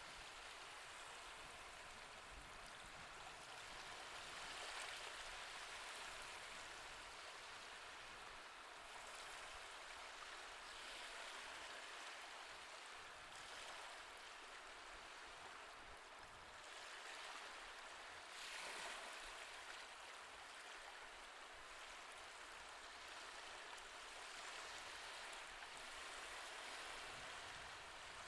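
Soft recorded ocean waves washing in and out, a steady hiss of surf that swells and ebbs every few seconds.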